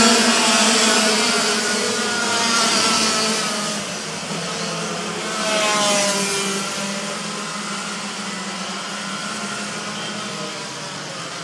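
Racing kart engines passing close on a wet track, their high engine notes rising and falling through a corner, with a hiss of water spray thrown up by the tyres. The sound fades as the pack moves away, with a brief swell about six seconds in.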